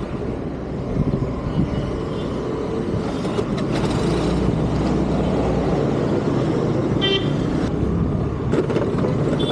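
Street traffic with vehicle engines running, and a vehicle horn honking briefly about seven seconds in.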